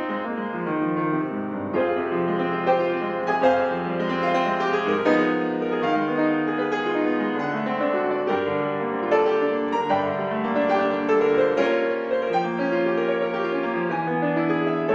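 Steinway grand piano played solo: a continuous classical piece of many-voiced passages, notes changing quickly.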